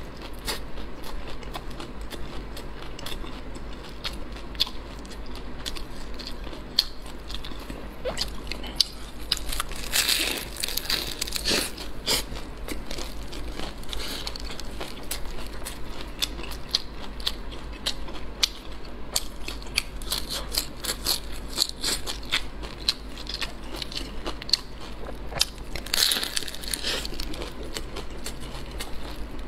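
Close-miked biting and chewing of a crispy, flaky layered pastry bun: a continuous crackle of crust flakes crunching between the teeth and fingers. The crunching gets louder and denser about ten seconds in and again near the end, as fresh bites of the crust are torn off.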